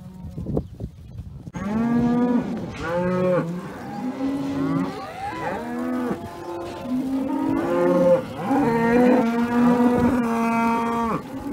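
Herd of black cows and calves mooing, one call after another and often several at once, starting about a second and a half in after a quieter opening.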